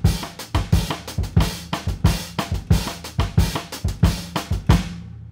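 Drum kit playing a bossa nova beat with cross-stick clicks on a 3D-printed snare drum, alongside bass drum and cymbals; the playing stops near the end and rings out. The cross-stick gets lost in the mix of the other drums, which the drummer puts down to the printed shell's low density and air-filled infill keeping it from projecting.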